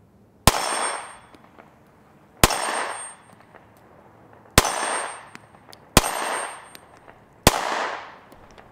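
Five gunshots from a 9mm SCCY compact pistol, fired slowly and deliberately one to two seconds apart, each shot trailing off in an echo over about a second.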